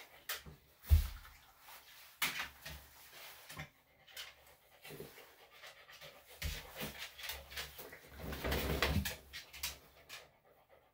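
Senior Bichon–Shih Tzu dog panting in irregular bursts, open-mouthed, while its ear hair is plucked. A loud thump comes about a second in.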